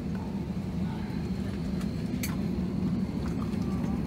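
Steady low drone inside an Airbus A321 cabin parked at the gate, with one faint click about two seconds in.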